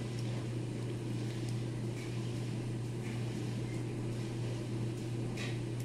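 Steady low mechanical hum of room noise, with a faint rustle near the end as a vinyl decal is handled and pressed on.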